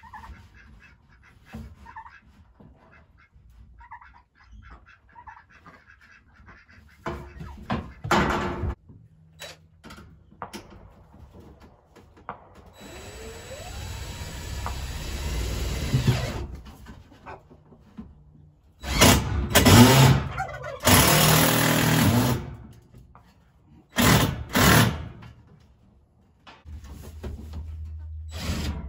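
Cordless drill driving screws through a sheet of corrugated tin roofing into wooden framing. It comes in several separate runs of a few seconds each, with the loudest run a little over two-thirds of the way in. One longer run near the middle rises in pitch as the motor speeds up.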